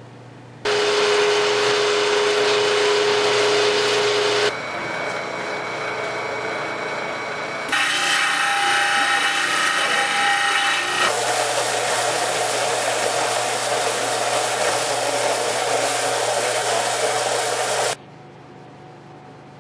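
A belt sander grinding solid aluminium dock parts held against the belt. The sound comes in four short clips that change abruptly, each a steady hissing grind, with a faint low hum before the first and after the last.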